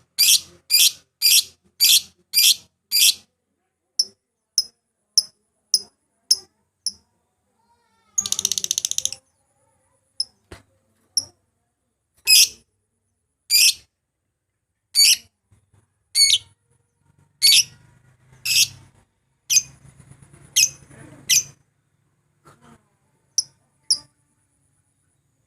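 Lovebird giving sharp, high-pitched chirps: a quick run of about five a second at the start, then single chirps spaced a second or so apart, with a longer buzzy rattling trill about 8 seconds in. It is a lure call of a rival lovebird, used to set other lovebirds singing.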